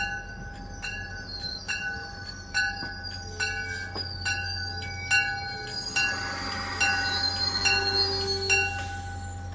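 A train's bell ringing steadily, about eleven strikes a little under a second apart, as a commuter train pulls in alongside the platform and stops; the strikes stop near the end. Under it is the train's low, steady hum, with a hissing noise rising in the last few seconds.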